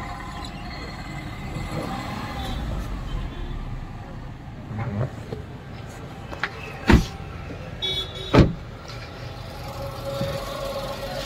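Tata Tiago's 1.2-litre three-cylinder petrol engine idling quietly and steadily, freshly serviced with new oil. Two sharp knocks stand out over it, about seven seconds in and again a second and a half later.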